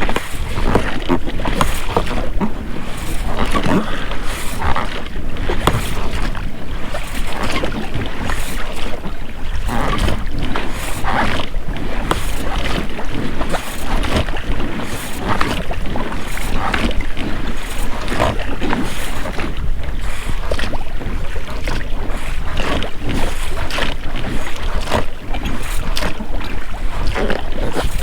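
Oars of a rowed inflatable boat splashing and pulling through the water, with the rubber rowlocks creaking, over a steady low rumble.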